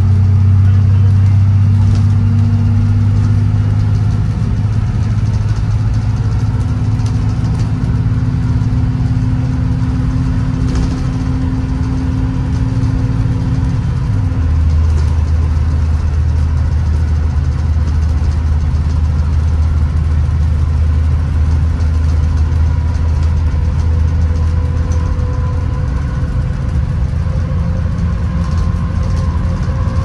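2016 Blue Bird Vision school bus driving, heard from inside the passenger cabin: the steady drone of its engine and drivetrain under road noise. The engine note drops lower about halfway through, and a faint whine rises near the end.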